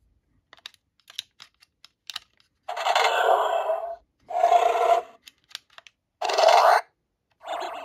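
Small plastic clicks of a tool poking the pin contacts inside a Hasbro Power Rangers Dino Fury Morpher toy, then four short electronic sound effects from its small speaker, each a second or less. The bursts are the toy's hidden sounds, set off by hitting the key-reader pins directly.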